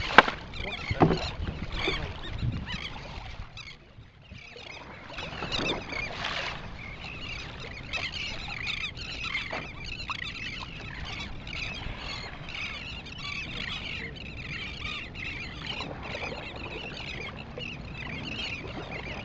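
Water splashing and lapping around a kayak on the sea, with a couple of sharp knocks in the first second or so.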